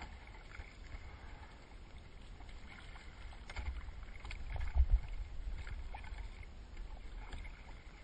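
Water sloshing and splashing against a kayak hull and paddle, with a steady low wind rumble on the microphone and a louder low bump about five seconds in.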